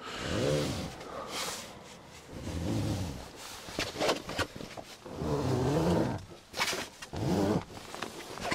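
A man grunting and groaning with effort, four strained sounds about two seconds apart, as he hauls down on the straps of a pop-top camper roof. Short rustles of the roof canvas come in between.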